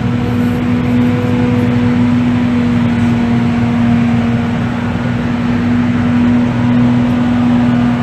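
A steady low hum with a few fixed tones above it, unchanging throughout, with no bell strikes.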